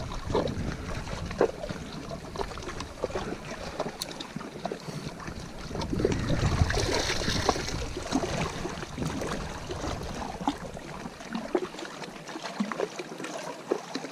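Small waves lapping and splashing against a rocky reservoir shore, a steady wash of water full of small splashes, swelling louder for a couple of seconds about halfway through.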